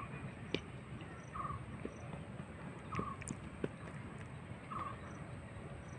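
Faint open-air ambience of a grassy field: a short trilling chirp repeats about every one and a half seconds, with a fainter, higher chirp repeating more often, over a low steady rumble. A few light knocks come through, about half a second in and around three seconds in.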